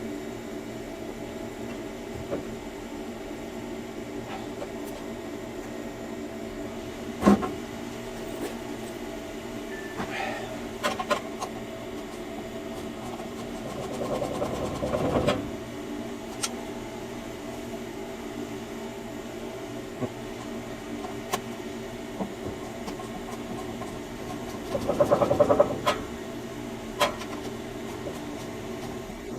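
Hand tools working the screws of a gas furnace's burner panel: a sharp metal knock about seven seconds in, and two bursts of rapid clicking as screws are turned out with a wrench, over a steady mechanical hum.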